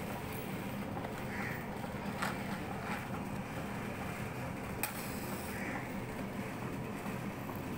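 A wooden safety match struck on the side of a matchbox: a sharp scrape about five seconds in, followed by a short hiss as it flares, with a few light clicks of the box being handled before it. A steady low hum runs underneath.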